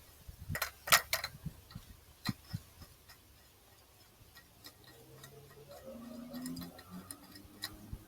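Small sharp clicks and knocks, several in the first three seconds and fewer after, from handling a laser-level receiver and its clamp on a measuring rod.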